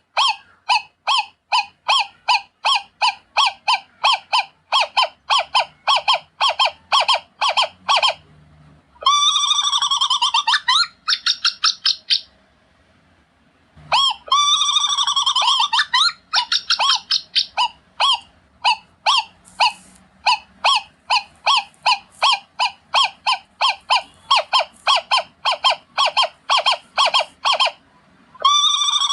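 Owl calling: a long run of short, sharp calls at about four a second, broken twice by harsher chattering screeches, with a brief pause between them.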